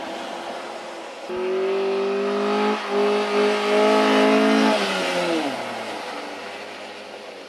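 Car engine held at high, nearly steady revs from about a second in as the car slides on the snowy ice track, the pitch creeping up; near five seconds the revs drop away as the throttle is lifted and the sound fades.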